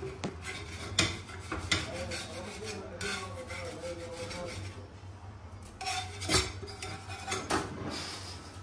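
Metal knife scraping around the edge of a flat round cooking pan, loosening a thin flatbread from its surface, with a few sharp taps and clicks of the blade against the pan.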